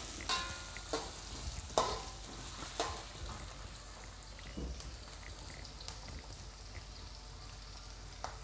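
Onion and dried red chillies sizzling in hot oil in a pan, a steady frying hiss. A few sharp knocks of a utensil against the pan come in the first five seconds.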